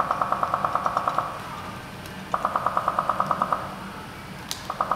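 Computer-generated electronic pulsing tone, rapid beeps at about ten a second on two pitches at once, in runs: one stops a little after a second in, another runs from about two and a third to three and a half seconds, and a third starts near the end. A single faint click comes shortly before the last run.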